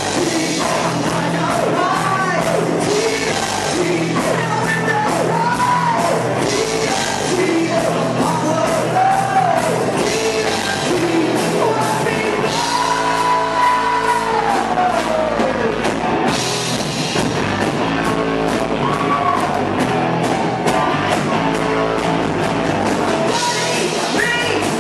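Rock band playing live, with drums and cymbals keeping a steady beat under a sung vocal line. Around the middle the singer holds one long high note that then slides down.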